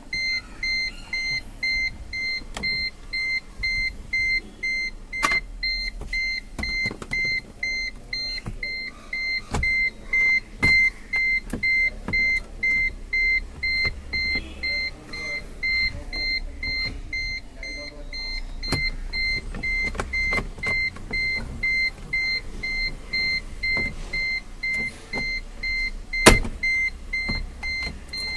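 A car's dashboard warning buzzer beeping steadily, about two beeps a second, over scattered clicks and knocks of plastic trim as the instrument cluster surround is worked loose by hand. One sharp knock stands out near the end.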